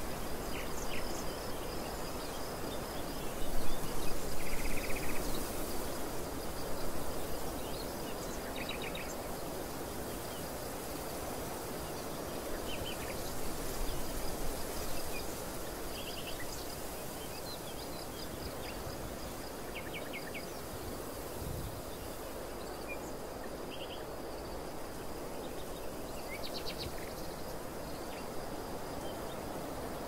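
Outdoor ambience of wind blowing steadily, swelling in gusts about four seconds in and again around fourteen seconds. Short bird chirps come now and then over a steady high insect whine.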